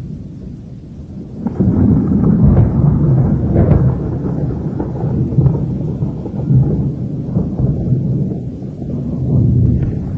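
Storm-force wind gusts buffeting the microphone as a loud, low rumble that surges about a second and a half in and keeps swelling and easing.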